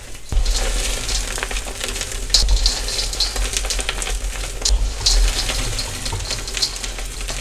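Soft dyed gym chalk being crushed and crumbled by hand: a steady crunchy, powdery hiss full of small crackles, with a few sharper cracks and low handling thumps.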